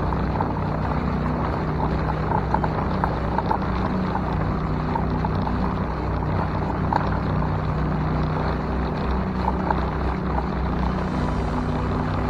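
Honda 2 hp single-cylinder four-stroke outboard motor running steadily at a constant throttle, driving the small boat along.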